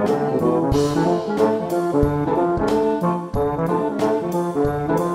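Jazzy instrumental intro music led by brass, with a melody over a steady beat.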